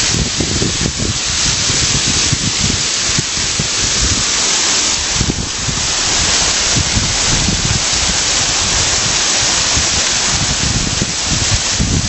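Small waterfall splashing down a stone wall into a stream: a steady rushing hiss, with low gusts of wind rumbling on the microphone.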